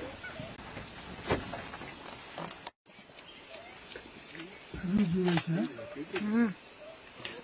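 Steady high-pitched insect chorus. The sound cuts out briefly about three seconds in, a few soft knocks come through, and there is about a second and a half of low vocal sounds near the five-second mark.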